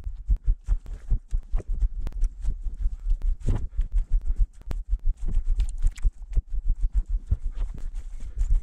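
Quick, irregular footsteps with brush and twigs crackling, as a person walks briskly through dry scrub with a body-worn microphone picking up heavy thumps.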